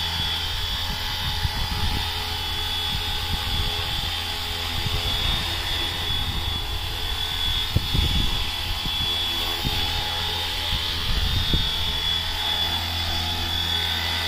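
Flywing FW450 V3 electric RC helicopter in flight: a steady high whine from its brushless motor and the whir of the rotor blades, with a few louder low rumbles near the middle.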